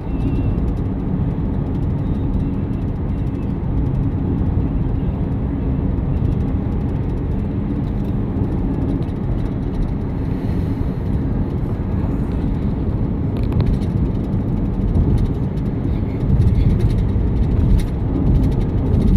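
Car driving on a rural road: a steady low rumble of road and engine noise with a faint engine hum, heard from inside the cabin. A few light knocks and rattles come in the last several seconds.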